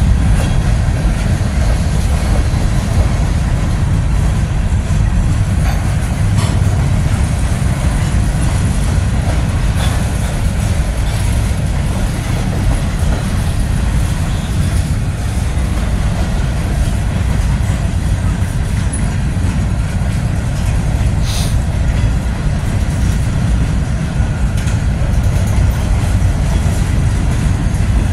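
A freight train's covered hopper cars rolling past close by: a steady heavy rumble of steel wheels on the rails.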